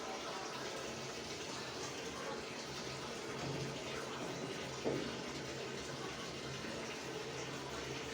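Water running steadily in a washing machine, with a faint low hum under it and a single brief knock about five seconds in.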